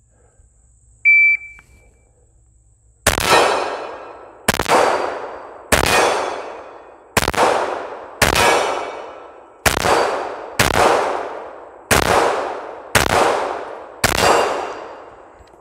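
A shot timer beeps once about a second in. Two seconds later a Glock 21 .45 ACP pistol fires ten shots at a steady pace of about one a second, each a sharp crack that dies away over about a second.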